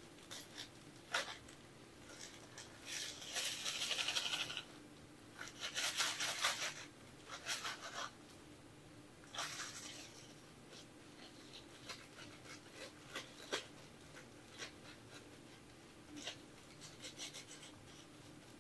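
A clear plastic bag of cremated remains crinkling and rustling in gloved hands, in several short bouts with small clicks between, over a faint steady hum.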